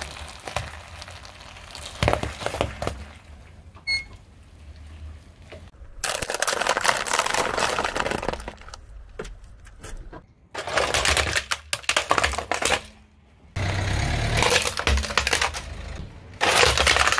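Things crushed under a slowly rolling car tyre, a run of crackling, crunching and squashing noises in several separate stretches, with a low rumble underneath. Pomegranates burst, a soft foamy mass squashes, and a plastic toy car cracks apart.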